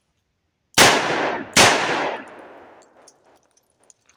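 Two revolver shots from a Taurus 692, about 0.8 s apart, fired on a timed two-shot drill. Each is a sharp crack that trails off in a long echo.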